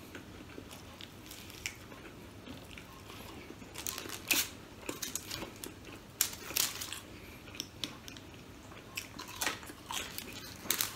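Close-up eating sounds from a person chewing pork barbecue and crisp bacon: scattered short crunches and mouth clicks. They are sparse at first and come in clusters from about four seconds in.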